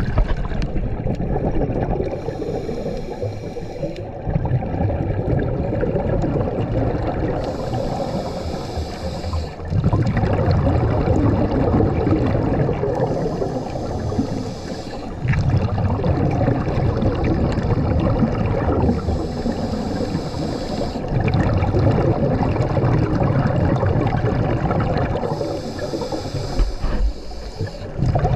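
A scuba diver breathing through a regulator: a hiss of each inhalation, then a long burble of exhaled bubbles, repeating about every five to six seconds.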